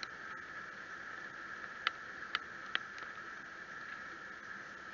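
Faint steady hiss with a few scattered sharp ticks, the clearest three coming about two to three seconds in.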